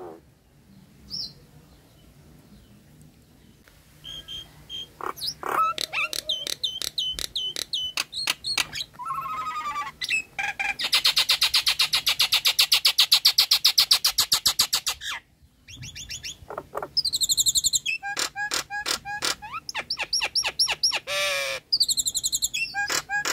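Nias hill myna calling: a run of loud, sharp whistles and clipped notes after a quieter start, a fast pulsing trill of about four seconds in the middle, then more varied whistles.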